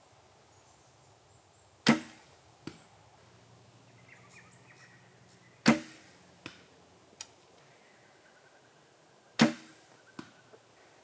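Big Jim Buffalo longbow shot three times, about four seconds apart: each release is a sharp string thump. Each is followed within a second by a fainter click as the arrow lands.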